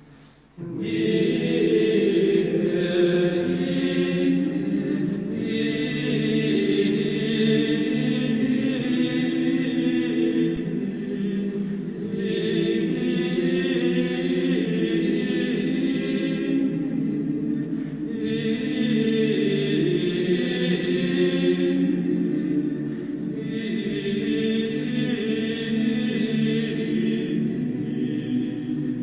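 A choir singing a slow chant in long, held notes, beginning about half a second in; the higher voices come in and drop out in phrases a few seconds long.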